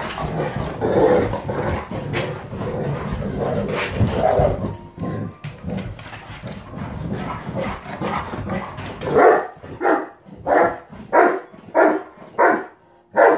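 Two dogs playing and scuffling around a room. About nine seconds in, a dog starts barking at an even pace, about seven barks roughly a second and a half apart.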